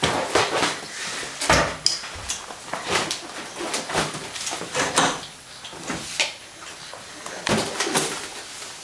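A latex balloon batted and pushed about by a baby's hands: a dozen or so irregular soft thumps and rubs.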